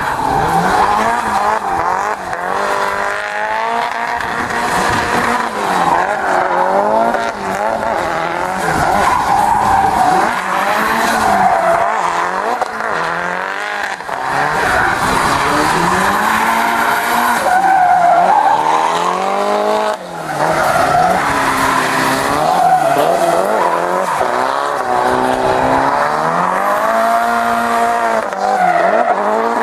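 Drift car's engine revving up and down again and again as it slides sideways, with the rear tyres screeching and spinning on the tarmac.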